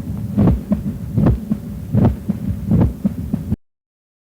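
Heart auscultation recording of the quail rhythm of mitral stenosis: a loud, snapping first heart sound, a normal second sound and the mitral opening snap, repeating about every three-quarters of a second over a steady hum. It cuts off abruptly about three and a half seconds in.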